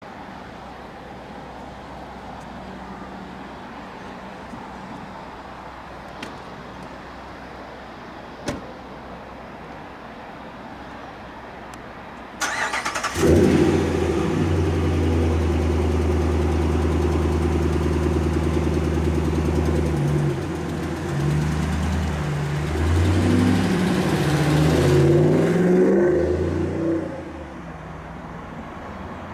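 Low steady background rumble, then a loud engine sound that comes in suddenly a little before halfway, runs as a steady low hum, rises in pitch in steps in its last few seconds and drops away sharply near the end.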